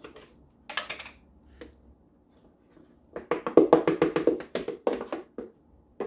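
Quick hollow knocks and clatter of kitchen utensils on a container while cornstarch is being measured out. A couple of single knocks come early, then a fast run of taps starts about three seconds in and lasts about two seconds.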